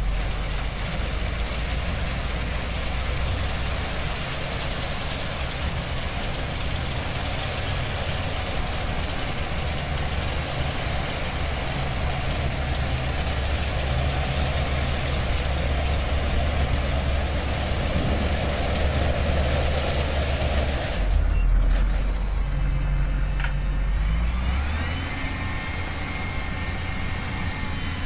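A heavy vehicle's engine running steadily under a constant hiss. About three quarters of the way in the hiss drops away and a deeper engine rumble takes over, then the engine pitch rises near the end.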